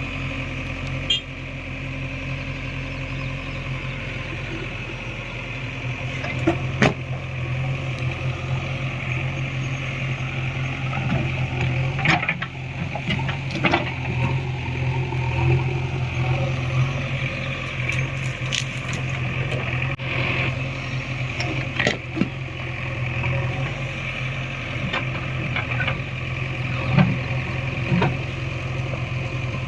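JCB 3DX Eco backhoe loader's diesel engine running steadily, with scattered sharp knocks and clanks from the digging in mud and rock.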